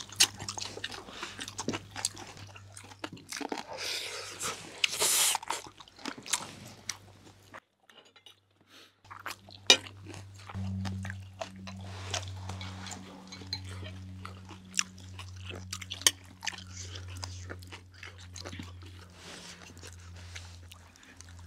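People chewing and crunching food close to the microphone, with many short crisp bites and wet clicks. A low steady hum comes in a little before halfway and runs under the chewing.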